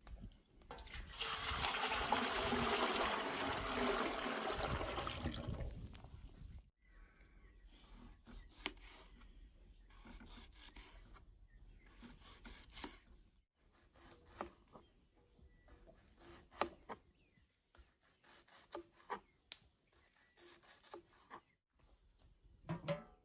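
Liquid running or pouring steadily for about five seconds, cutting off abruptly, then scattered light clicks, knocks and rubbing of kitchen utensils and containers being handled.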